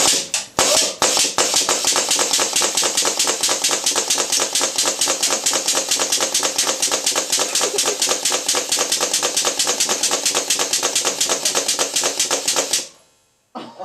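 A motor or engine running steadily with a rapid, even pulse, cutting off suddenly near the end.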